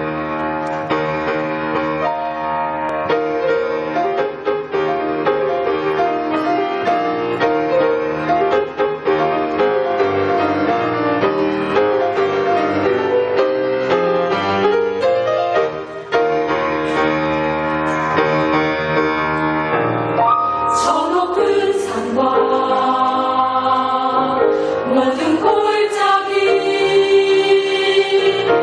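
Choir singing a hymn with piano accompaniment. About twenty seconds in, the texture changes and the voices waver and slide more.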